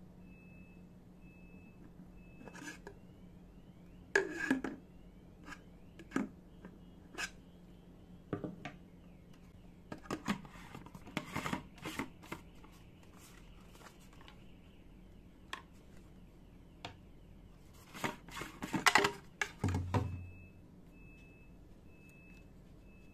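Hard plastic parts of a Total electric paint sprayer being handled and fitted together by hand: scattered clicks, knocks and scrapes, with a louder run of knocks a few seconds before the end.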